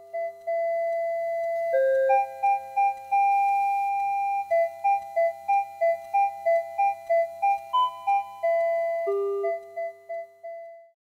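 Background music: a simple melody of clean, beep-like tones, with a run of short repeated notes, about three a second, in the middle. It stops shortly before the end.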